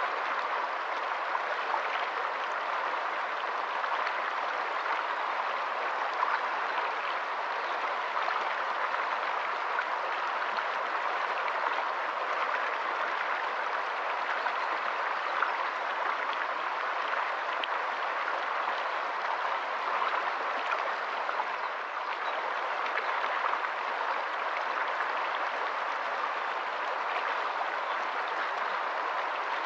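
Shallow, rocky stream running over stones, a steady, even rush of water with no letup.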